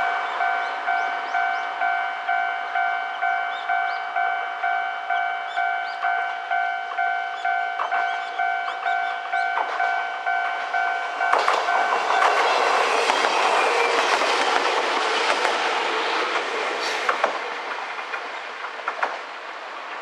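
Japanese level-crossing electronic warning bell beeping at about two and a half beeps a second, the electronic tone type common on the Kamikochi Line's crossings. About eleven seconds in, an Alpico Kotsu 3000-series electric train passes over the crossing with wheels clicking over the rail joints, its noise fading near the end.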